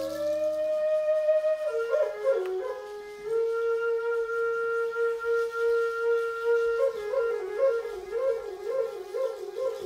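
Solo flute playing a slow melody: a few held notes with a step down about two seconds in, a long steady note, then from about seven seconds a quickly wavering, ornamented passage.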